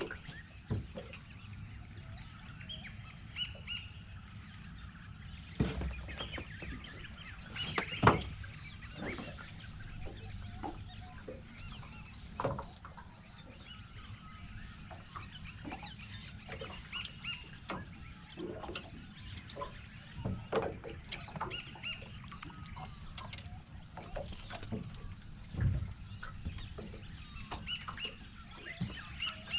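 Birds calling now and then, over a low steady rumble, broken by scattered knocks and clunks on an aluminium dinghy's hull as the angler moves and handles his gear.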